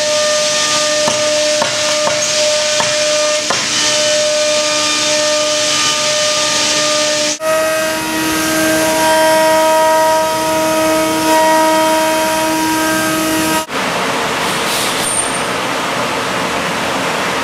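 CNC router spindles running and cutting, a steady whine in several held pitches over a loud hiss. The sound changes abruptly twice, the last stretch mostly hiss.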